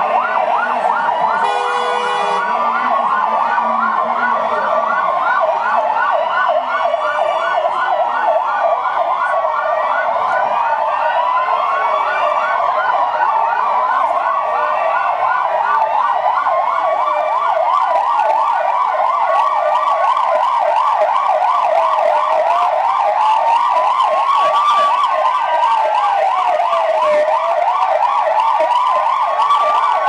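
Several police car sirens sounding at once, some in a fast yelp and others in a slow rising-and-falling wail. A short horn blast comes about two seconds in.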